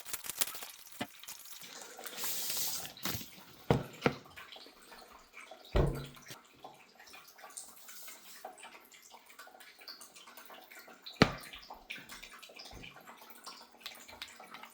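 Handling noise from unpacking a heavy aluminium mechanical keyboard: a rustle of wrapping about two seconds in, scattered light clicks and taps, and a few knocks as the keyboard is moved and set down, the loudest about eleven seconds in.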